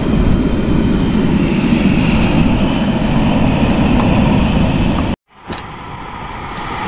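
Wind buffeting the microphone: a loud, steady rumbling noise that cuts off abruptly about five seconds in, giving way to a quieter rushing noise.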